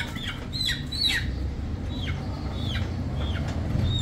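Young chicken calling: a string of short, high calls, each falling in pitch, a few every second, over a low background rumble.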